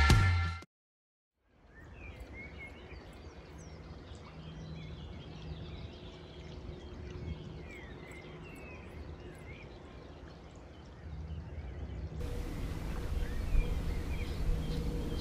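Birds chirping and singing at a riverside over a low, steady background rumble. Rock music cuts off in the first second.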